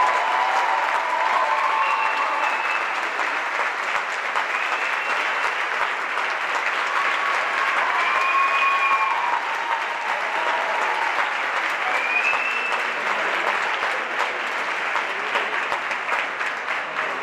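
Audience applauding steadily in a theatre auditorium, with a few short pitched calls rising above the clapping.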